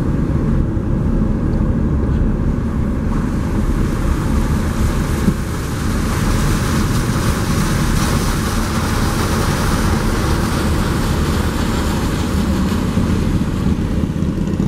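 A car's engine running and its tyres rolling on a wet road, heard from inside the cabin while driving slowly; the sound is a steady mix of low hum and road noise.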